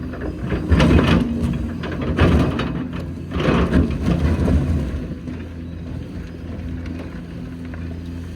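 Hitachi Zaxis 490LCH excavator's diesel engine running, with three louder noisy surges in the first four seconds, then settling to a steadier, quieter run.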